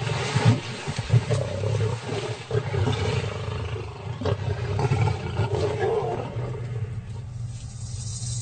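Several lions growling and snarling as they squabble over a buffalo kill. A low growl runs throughout, with sharper, louder snarls in the first couple of seconds.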